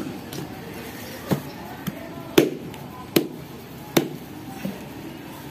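A heavy kitchen knife chops into the husk of a young coconut, with about six hard, irregularly spaced chops. The loudest comes about two and a half seconds in.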